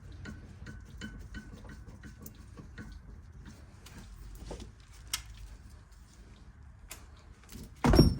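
Small metallic clicks in an even rhythm, about three a second, fading into scattered clicks, from hand-tool work on a brake caliper, typical of a ratchet wrench turned in short strokes. A short loud clank near the end.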